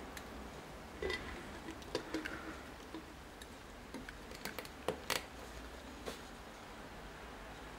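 Lid being pressed onto an empty glass blender carafe and a clear plastic centre cap pushed into it: a scattering of light clicks and taps, ending about six seconds in.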